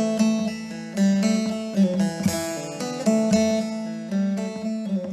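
Instrumental passage of a Turkish folk song: a plucked string instrument strikes chords and notes about once a second, each ringing and fading, with no singing.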